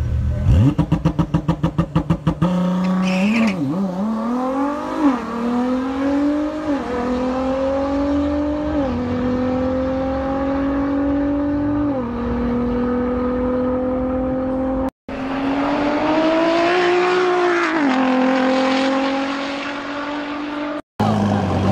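Ford GT's twin-turbo V6 stuttering rapidly at about seven pulses a second, held against the launch limiter, then launching and accelerating hard, its note rising and dropping back at each of several upshifts. After a brief cut, a second Ford GT accelerates with a rising note, then eases off near the end.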